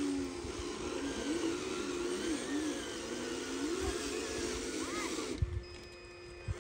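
Radio-controlled model truck's electric motor and gearbox whining over gravel-and-mud crunching, the pitch rising and falling as the throttle changes. About five seconds in comes a thump, and the sound drops to a quieter steady hum.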